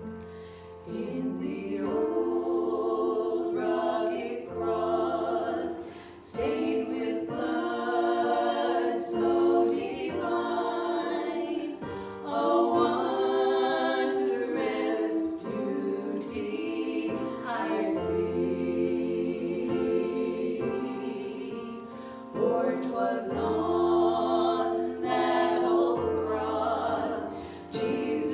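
A worship song sung by voices over sustained low instrumental notes, in phrases with short breaths between them.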